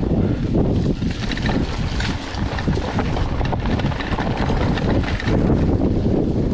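Mountain bike riding fast over a rutted dirt forest trail, heard from a camera on the handlebars: steady wind buffeting and rumble, with frequent small rattles and knocks as the bike goes over bumps.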